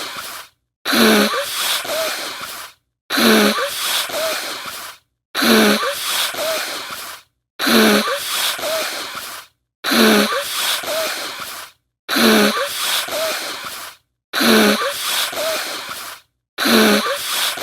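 A short stock sound effect played on a loop, repeating about every two seconds with brief silent gaps between repeats. Each repeat opens with a short pitched sound and trails off into a hiss.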